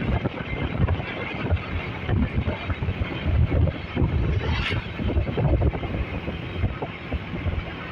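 Strong wind buffeting the microphone: a heavy, uneven low rumble that rises and falls in gusts.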